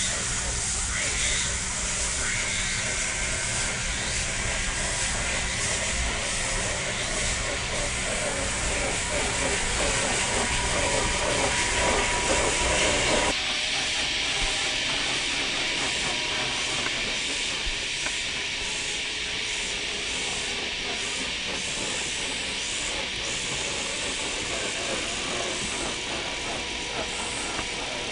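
1/6-scale FMS Jimny LJ1 RC crawler driving over a dirt trail: its electric motor and gears whine steadily under a hiss of tyres on dirt and leaves. The sound changes abruptly about halfway through.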